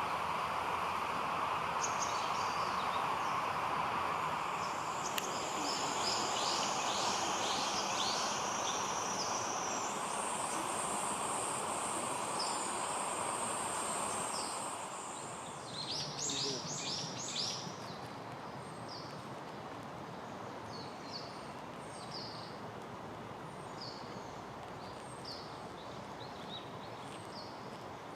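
Outdoor summer soundscape: a steady high insect buzz over a rushing background for the first half, a quick burst of bird song about sixteen seconds in, then short high calls repeating about once a second.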